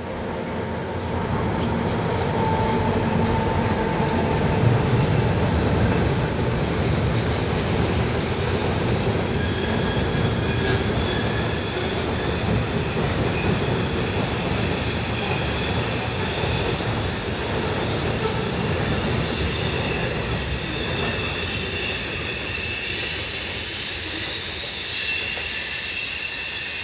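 Maryland Midland cement train of covered hopper cars rolling over a girder bridge: a steady rumble of steel wheels on rail. From about ten seconds in, several high-pitched wheel squeals join it and keep sounding.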